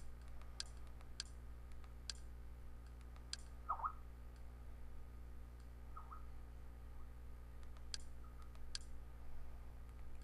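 Sharp button clicks, about six spread unevenly with a pause in the middle, from someone pressing buttons to step through an on-screen menu. Two short squeaks come near the middle, over a faint steady low hum.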